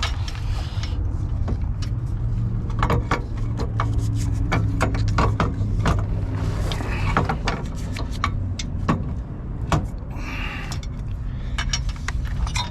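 Metal bolts and washers clinking and clicking as mounting bolts are threaded in by hand, many small sharp ticks scattered through, over a steady low rumble that swells in the middle.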